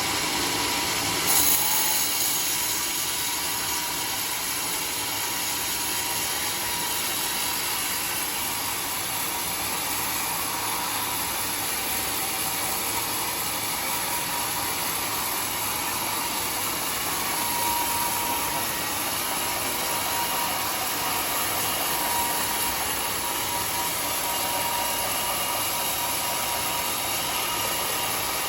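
Large sawmill saw running steadily through a teak log, a dense hiss of blade in wood over the machine's hum. The hiss gets sharply brighter and louder about a second and a half in, then holds steady.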